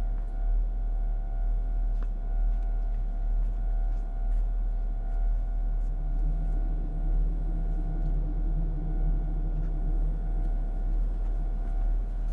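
Low, throbbing rumble drone of a horror film's suspense sound design, with faint steady high tones above it; a second, higher hum swells in about halfway through and fades a few seconds later.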